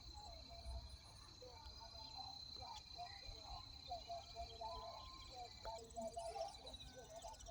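A steady, high-pitched insect trill that stops about three-quarters of the way through. Under it are scattered soft bird chirps and a low wind rumble.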